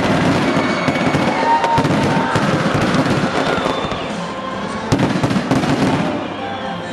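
Aerial fireworks crackling and popping in dense, rapid volleys, with a sharp bang about five seconds in.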